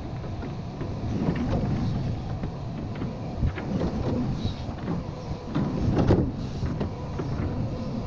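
Cat hydraulic excavator's diesel engine running steadily as it works its bucket on an earth slope, with a few short knocks and scrapes, the loudest about three and a half and six seconds in.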